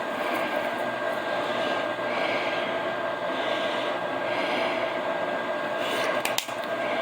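Steady whir and hum of a running appliance fan, with a couple of short clicks a little after six seconds in.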